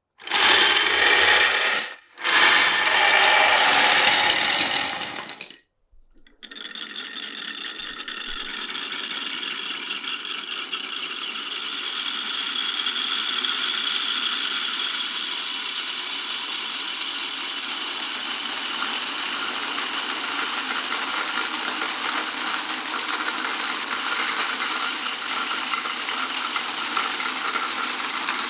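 Many marbles rolling and clattering along a wooden marble run: a steady dense rattle of small clicks that slowly grows louder. It is preceded by a louder rushing clatter in the first five seconds, which breaks off briefly about two seconds in.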